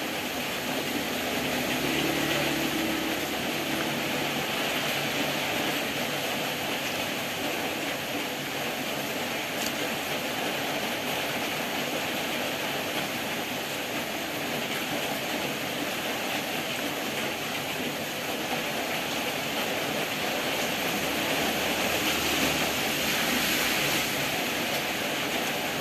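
Steady hiss of rain, with a faint low hum from about two to four seconds in.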